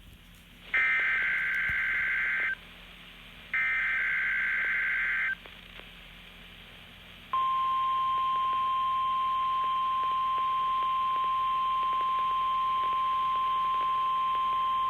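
NOAA Weather Radio Emergency Alert System test signal. Two bursts of SAME header data tones, each a buzzing two-tone warble lasting about two seconds, are followed, starting about seven seconds in, by the steady 1050 Hz warning alarm tone.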